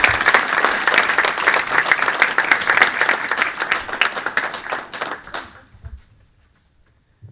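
Small audience applauding, a dense patter of hand claps that thins out and dies away about five seconds in.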